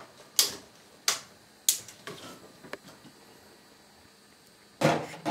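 A cat pawing at a wire pet cage and the parts fitted to it, making sharp metallic rattles: three strong ones about two-thirds of a second apart, a few lighter clicks, then a louder clatter near the end.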